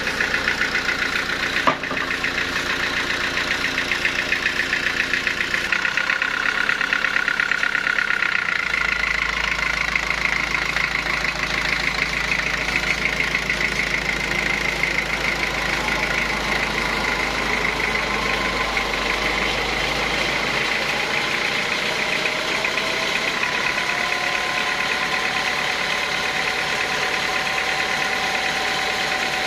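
Sawmill saw running steadily at a teak-sawing mill, a constant machine hum with a high whine over it. There is a single sharp click about two seconds in, and the low hum shifts a few times.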